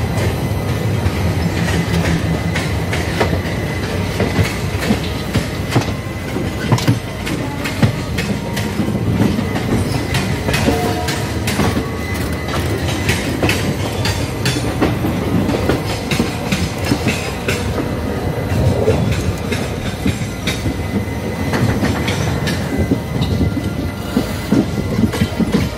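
Express passenger train running at speed, heard from an open coach doorway: a steady rumble of the wheels with rapid clatter over rail joints and points.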